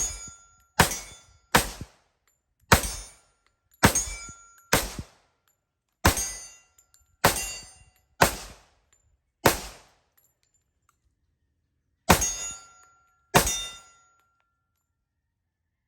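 A string of eleven .45 ACP pistol shots from an FN FNX-45 Tactical, fired at about one a second with a short pause before the last two, each hit ringing the steel target plate.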